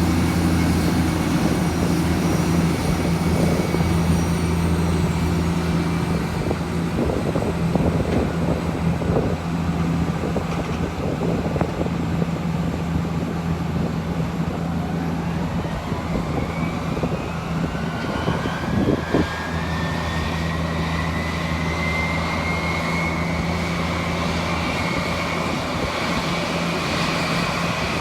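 Boeing 787-8 airliner during pushback: a steady low engine drone, with a turbine whine that begins rising about halfway through and keeps climbing as a jet engine spools up during start.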